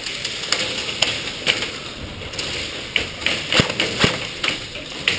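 A string of sharp clicks and knocks, irregular, about two a second, over a steady background hiss.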